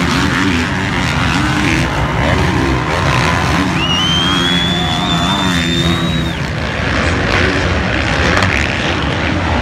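Several motocross bikes' engines running and revving on the track, a dense, shifting engine noise with pitch that rises and falls as riders work the throttle. A high whine rises and holds for a couple of seconds midway.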